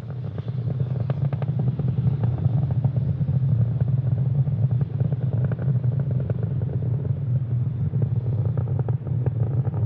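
Falcon 9 first stage's nine Merlin 1D rocket engines burning in ascent, a steady low rumble laced with dense crackling. The engines are throttled down slightly as the vehicle nears maximum aerodynamic pressure (Max Q).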